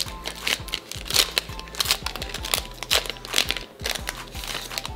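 Plastic wrapper of a trading-card pack crinkling as it is torn open and handled, over background music.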